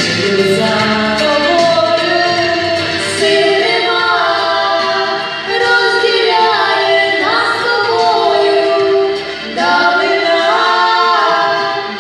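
Two female voices singing a Ukrainian song as a duet, held sung notes moving from pitch to pitch, with brief breaths between phrases about halfway through and again near the end.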